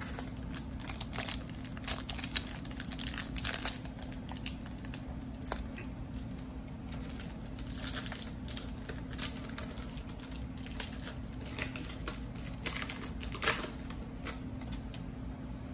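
Foil wrapper of a 2018-19 Donruss Optic basketball card pack crinkling and tearing as it is ripped open, with irregular sharp crackles.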